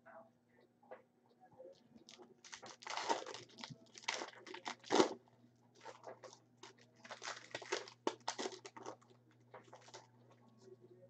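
A trading-card pack wrapper being torn open and crinkled, in two spells of crackly rustling.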